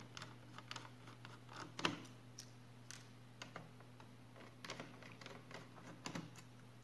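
Faint, irregular small clicks and ticks of a screwdriver working small screws out of a laptop's plastic case, over a faint steady low hum.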